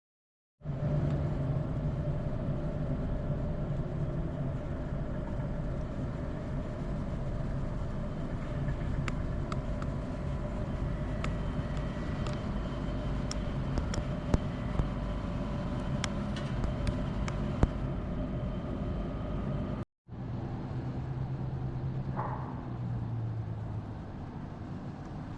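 A vehicle running steadily with a low, even drone and a few light clicks, broken by a cut about 20 seconds in, after which the running noise goes on.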